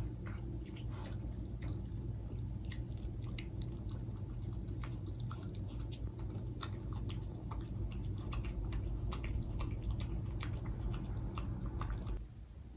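A small Maltese dog chewing and smacking its food, with quick, irregular wet clicks that stop near the end. A steady low hum runs underneath and cuts off at the same moment.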